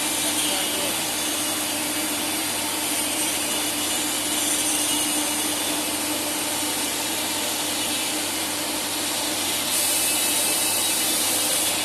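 Automatic tool-change CNC wood router running, a continuous machine noise with a steady hum. About ten seconds in, a louder hiss joins it.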